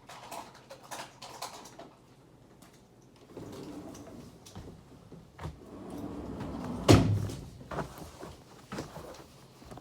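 A series of knocks and clicks, like a door or cupboard being handled in a small room, with one much louder sharp thud about seven seconds in.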